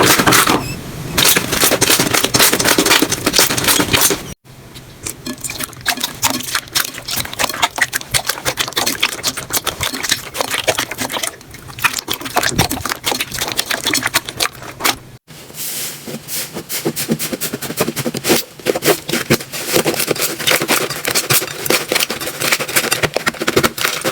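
Slime being squeezed and poked by hand, giving dense, rapid crackling and popping clicks. The sound cuts off sharply twice and starts again, as one short clip gives way to the next.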